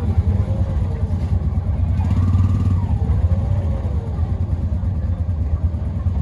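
Motor vehicle engine running with a steady low rumble, with faint voices in the background.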